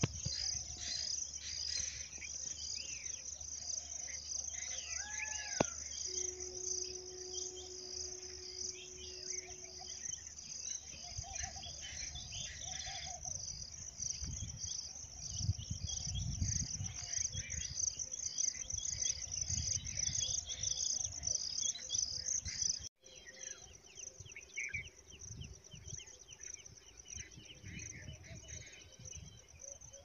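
Insects chirping in a steady, high, pulsing chorus, with scattered bird chirps and calls. Wind rumbles on the microphone in the middle of the clip, and the sound briefly drops out about two-thirds of the way through, coming back quieter.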